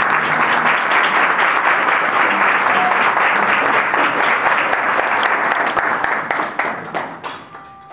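A roomful of people applauding, a dense round of clapping after a song that dies away near the end.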